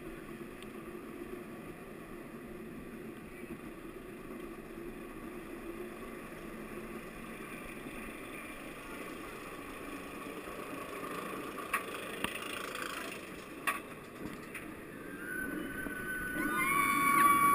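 Inverted roller coaster train climbing its chain lift hill: a steady low mechanical rumble with a few sharp clanks near the crest. Near the end, riders start yelling and the rush of air grows louder as the train tips over into the first drop.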